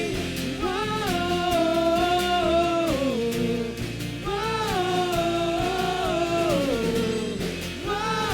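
Live church worship music: voices sing two long, held phrases with sliding pitch over steady band backing, in a gospel-style praise song.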